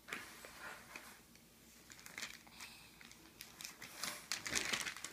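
Faint rustling and crinkling with scattered light clicks from a toddler's hands handling a shoe and magazine pages on a bed, growing busier in the last second or so.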